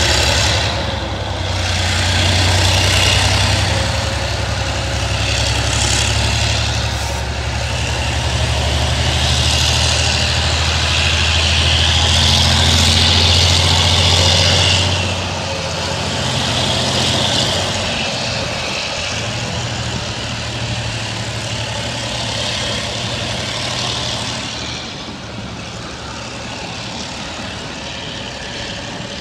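Freight train passing close by. Diesel locomotive R115 and a second diesel locomotive drone deeply for about the first fifteen seconds, then a long line of loaded flatcars rolls past with steady wheel-on-rail rattle. The rattle swells and eases in waves and gets quieter near the end.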